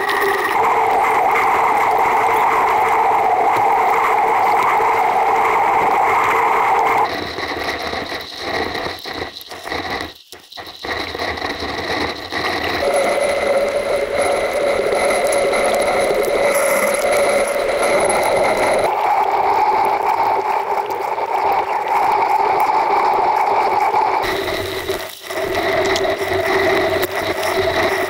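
Steady underwater noise from the submerged camera: a loud hiss with several fixed, whistle-like tones, changing abruptly at each cut between shots, with brief dropouts about a third of the way in.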